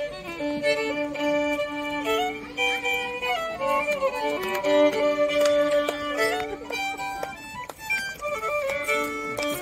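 A solo fiddle played live with a bow: a tune of held and moving notes with a low note sounding underneath much of the time.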